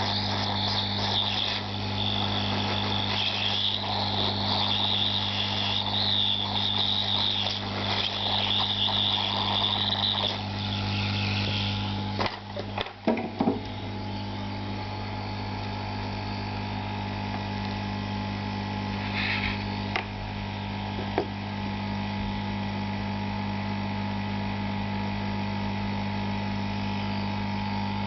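Hot-air soldering station running: a steady electrical hum with a hiss of blown air that drops away about ten seconds in. A few sharp clicks follow.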